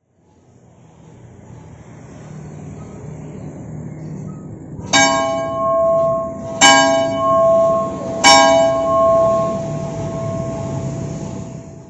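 Church bell in a bell tower striking three times, about a second and a half apart, each stroke ringing on with a long hum. A low background rumble fades in before the first stroke.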